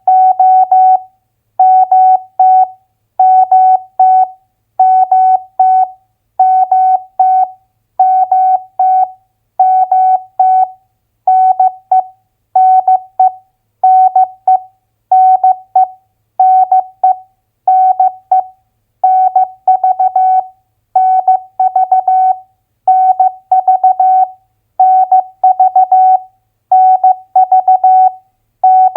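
Morse code (CW) practice tone, a single steady beep keyed in dots and dashes at 15 words per minute, sending two-letter US state abbreviations as short groups about a second apart with brief silent gaps between.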